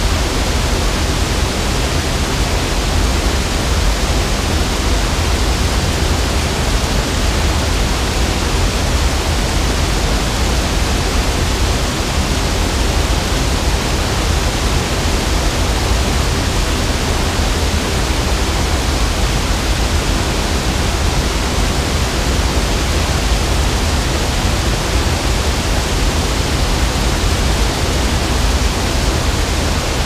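Water rushing steadily over a river weir waterfall and through the rocky riverbed below, a loud, even, unchanging rush with a deep low rumble.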